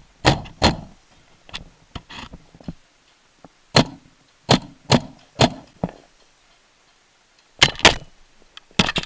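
Paintball marker firing a dozen or so sharp shots in short irregular groups, with a pause of about a second and a half before a final few shots.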